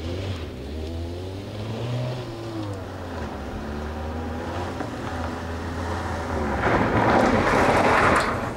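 Peugeot 206 hatchback driven hard on loose dirt, its engine revving up and falling back repeatedly as it comes closer. Near the end comes a loud rushing hiss of tyres spraying gravel and dust as the car slides past close by.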